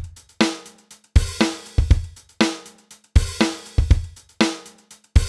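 Intro music carried by a drum-kit beat: kick drum and snare hits with cymbals, each hit ringing and dying away, in a pattern that repeats roughly every second and a half.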